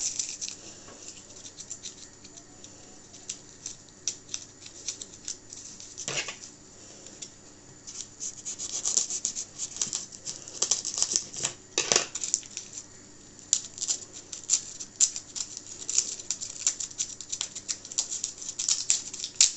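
Kitchen handling noises as a food package is worked open: a stream of small clicks, crackles and rustles, sparse at first and much denser in the second half, with louder knocks about six and twelve seconds in.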